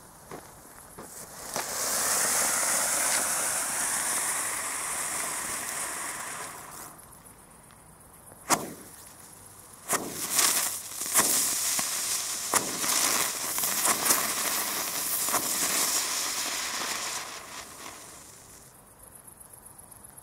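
A small class 2 firework fountain with spinner ejection (Comet Sternkreisel) burning: a steady hiss for about five seconds, a lull with one sharp pop, then a second stretch of hissing with a string of sharp pops as the little spinners are shot out of their tubes, dying away near the end.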